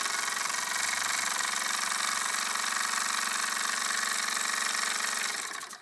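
Wilesco D5 toy steam engine running steadily, its oscillating cylinder beating rapidly with hissing exhaust steam and mechanical clatter as the flywheel spins. The sound cuts off near the end.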